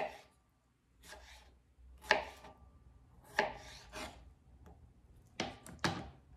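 Kitchen knife slicing a cucumber into thin half-moons on a cutting board: about half a dozen sharp strokes, roughly one a second, each cut ending as the blade meets the board.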